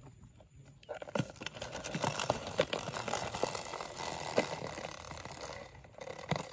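A clear plastic food container being handled and scraped close to the microphone: a dense rustling, scraping noise with many sharp clicks, starting about a second in and dropping away near the end.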